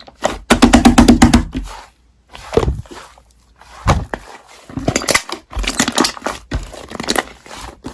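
Slime being squished and worked by hand, a run of crackly clicks and pops that pauses briefly a couple of seconds in, then resumes.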